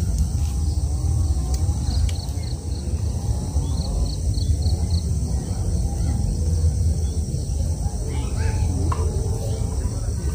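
Outdoor ambience with a steady low rumble and a bird chirping about five times in quick succession around four seconds in.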